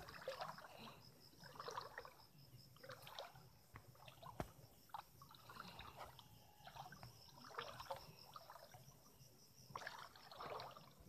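Faint, irregular rustling and a few sharp snaps of vegetable fern (pako) fronds being pulled and broken off a creek bank, with soft water sloshing around the picker's legs. A faint high pulsing chirp runs behind it.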